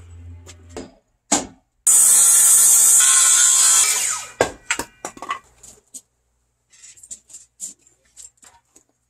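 Handheld circular saw cutting through a wooden roof timber for about two seconds, starting about two seconds in, then cutting out. A series of sharp knocks and light ticks follows.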